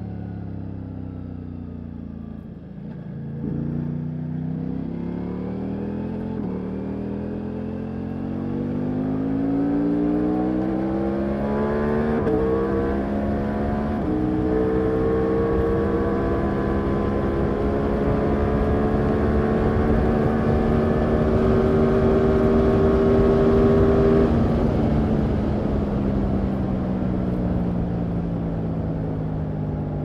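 Ducati Multistrada V4 Rally's V4 engine accelerating hard: its pitch climbs through the gears, with quick upshift breaks in the first half. It then holds high and steady in sixth at speed and falls away as the throttle is rolled off about three quarters through. Wind noise runs underneath.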